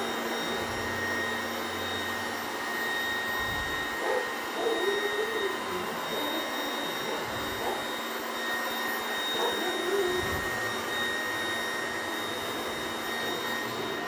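Trifo Max robot vacuum cleaner running its normal cleaning cycle: a steady whir of its suction motor and spinning brushes, with a thin, steady high whine on top.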